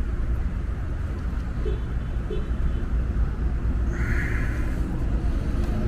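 Steady low rumble of outdoor background noise, with a brief higher hiss about four seconds in.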